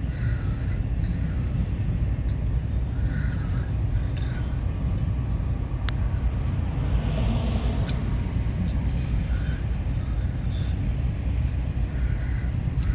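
Long CSX intermodal freight train rolling past: a steady low rumble, with a couple of sharp clicks about halfway through and near the end.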